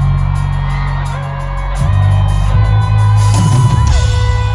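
Live rock music played loud through a large outdoor PA: heavy bass, electric guitar and drums from a band on stage, heard from the crowd. The music eases off about a second in and comes back in full just before two seconds in.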